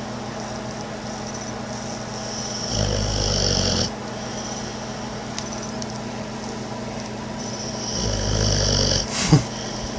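Boxer dog snoring while awake: a steady rasping snore that swells louder twice, around three seconds in and around eight seconds in. A short sharp sound comes just after nine seconds.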